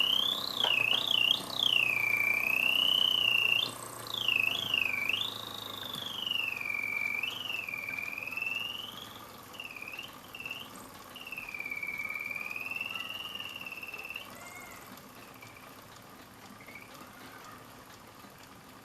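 German alarm clock's birdsong alarm: a single whistling tone sliding up and down in swoops and quick trills. It grows weaker and more broken after about nine seconds and dies away at about fourteen seconds, leaving a few faint chirps.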